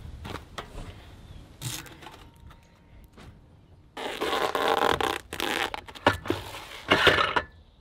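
Duct tape being peeled off a boat engine's air cleaner by hand: a few short rips in the first two seconds, then longer, louder crackling tearing from about halfway in until shortly before the end.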